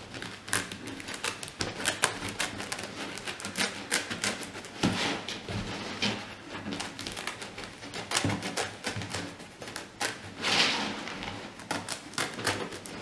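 Irregular clicks and rustles of fingers working a braided hat cord down into place around the crown of a woven campaign hat, with a longer rustle about ten and a half seconds in.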